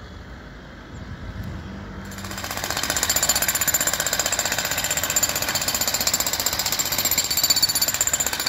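Jackhammer hammering rapidly during street repair work, starting up about two seconds in and keeping on steadily.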